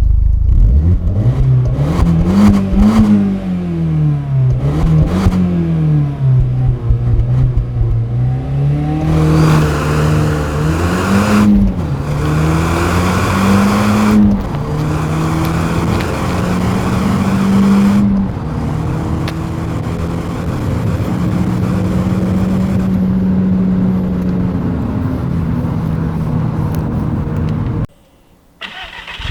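Audi TT 225's 1.8-litre turbocharged four-cylinder on its stock exhaust, revved up and down several times, then held at fairly steady revs. The sound drops away briefly near the end.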